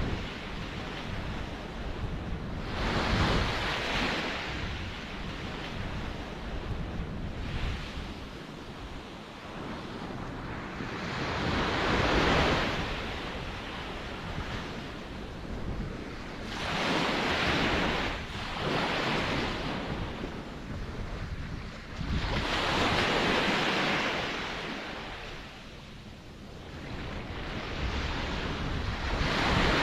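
Ocean surf: waves break and wash in every few seconds, each a swelling hiss that fades away, over a steady low rumble of the sea.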